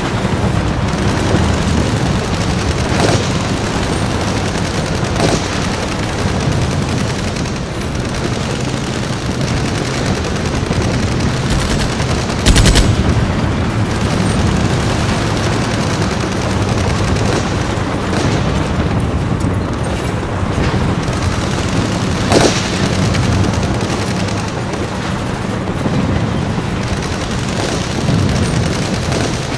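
Battle soundscape of continuous automatic rifle fire, with a few sharper, louder shots or blasts standing out. The loudest comes about twelve seconds in, and another about twenty-two seconds in.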